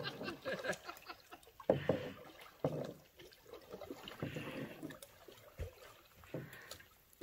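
Faint lake water sounds: a few soft splashes and lapping at irregular intervals, with quiet between.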